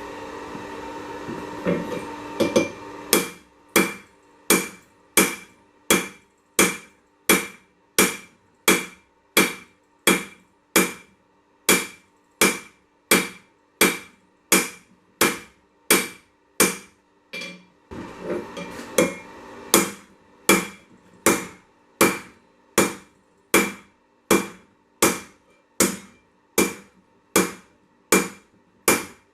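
Hand hammer forging hot 1085 carbon steel on an anvil, drawing out the stock. The blows fall steadily at about one and a half a second after a steady hum at the start, break off briefly a little past halfway, then resume.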